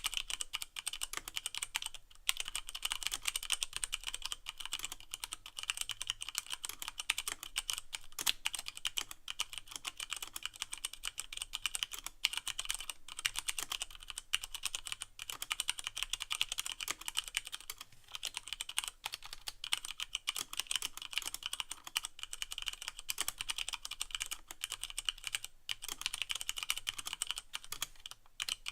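Continuous fast typing on a Leopold FC660M mechanical keyboard with Cherry MX Brown switches and no O-rings: a dense run of clacking keystrokes with a few brief pauses.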